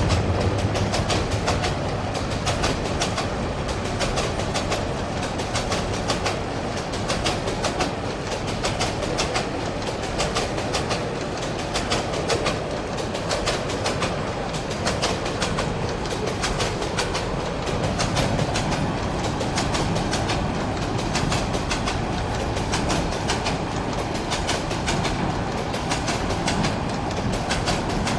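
Loaded bogie flat container wagons of a long metre-gauge freight train rolling past close by. The wheels give a steady, continuous clickety-clack over the rail joints.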